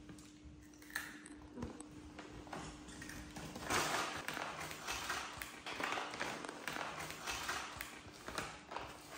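Crinkling and rustling of a foil snack pouch being handled, starting about four seconds in and going on in short bursts, with a faint steady hum before it.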